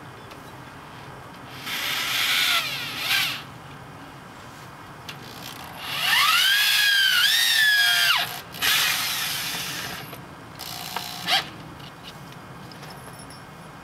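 Power drill driving screws into window trim: four short runs of motor whine, the longest about two seconds in the middle, its pitch rising as the motor spins up and dropping as it stops.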